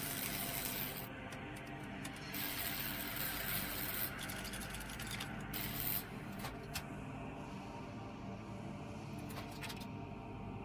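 Film sound design of machinery at work: mechanical clicking and whirring, with bursts of hiss that start and cut off abruptly, over a steady low musical drone.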